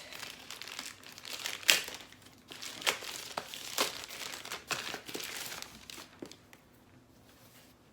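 Plastic packaging of a pair of earphones being handled, crinkling and rustling with sharp crackles for about six seconds, then dying down.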